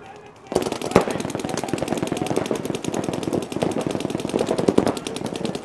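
Paintball markers firing a rapid, steady stream of shots, starting suddenly about half a second in.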